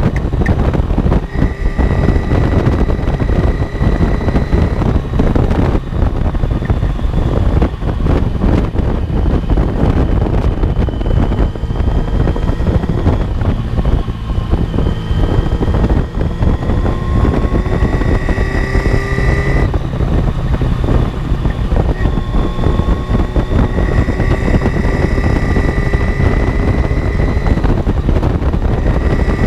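1982 Yamaha XJ750 Seca's air-cooled inline-four engine running at road speed, heard close up over heavy wind buffeting on the microphone. The engine's pitch climbs steadily as the bike accelerates, then drops suddenly about two-thirds of the way through and again near the end as it shifts up a gear.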